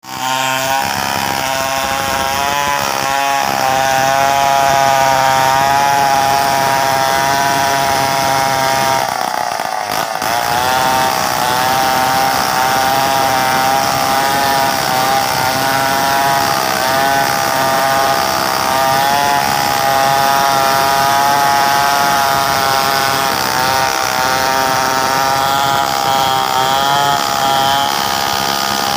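A large two-stroke chainsaw running at high revs, bucking a mahogany log, its pitch wavering as the chain bites and frees. About nine seconds in, the revs briefly sag and then pick up again.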